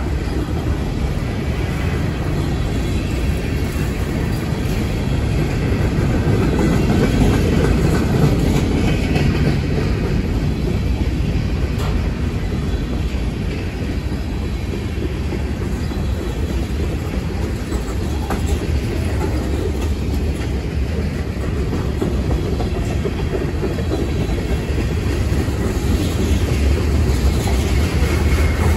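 Freight cars of a long mixed manifest train rolling past: a steady, low-pitched noise of steel wheels running on the rails.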